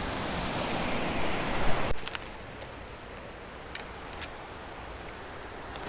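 Steady rush of river rapids that cuts off abruptly about two seconds in, giving way to a quieter flow of water with a few light clicks.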